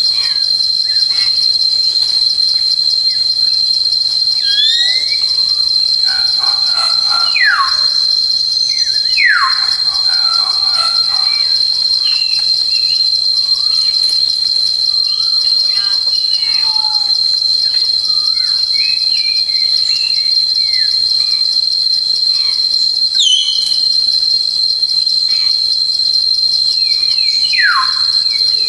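Steady, high, fast-pulsing insect chorus with bird calls over it: a few clear falling whistles, two close together about a third of the way in and one near the end, along with a rising call and scattered short chirps.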